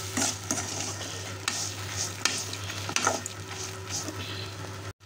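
Metal spoon stirring and scraping chopped coconut, dried red chillies, mango peel and dal around a metal kadai, with the food sizzling in hot oil as it is sautéed. The scrapes come irregularly, about one or two a second, and the sound cuts out for a moment near the end.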